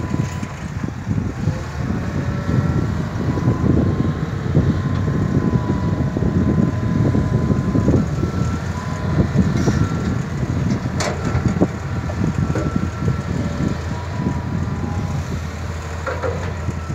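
Diesel engine of a Hitachi Zaxis 200 excavator running while it digs and loads soil, a steady rough rumble with a faint wavering whine above it and a sharp click about eleven seconds in.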